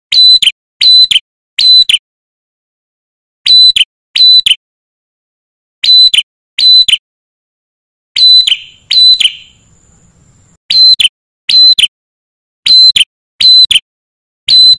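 Male ashy tailorbird singing loudly, a string of sharp whistled notes mostly in pairs, each note dropping in pitch at its end.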